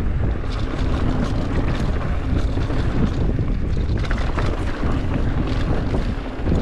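Mountain bike rolling over dirt and rock singletrack, with wind noise on the microphone and scattered clicks and rattles from the tyres and bike.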